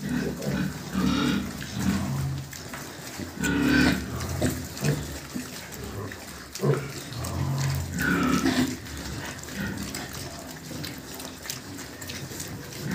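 A group of young pigs grunting irregularly while they root and eat feed grain from the ground. A couple of brief higher-pitched calls come about four and eight seconds in.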